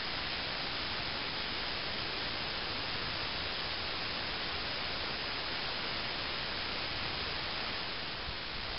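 A steady, even hiss with no other sound in it.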